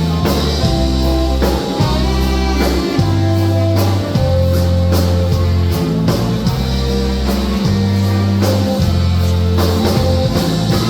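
Live band playing a waltz, with long bass notes changing about once a second under the melody.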